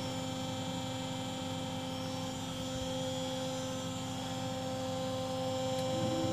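Steady electrical hum of a powered-up CNC lathe standing ready to run its program, several fixed tones held over a low noise; another tone joins in near the end.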